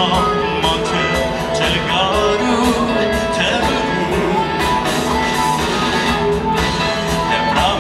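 Live band playing a pop-rock song with a lead vocal singing over drums and instruments, heard as a loud, continuous performance through the PA.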